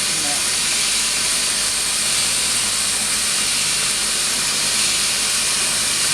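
Steady hiss of the welding arcs on an automatic double-head circumferential welding machine as it runs a seam around a tank.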